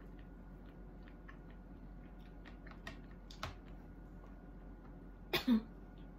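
Quiet eating-by-hand sounds: fingers picking at fish and rice on the plate and in the bowl, with small sharp clicks and mouth smacks while chewing. About five seconds in comes a short, louder throat or mouth noise.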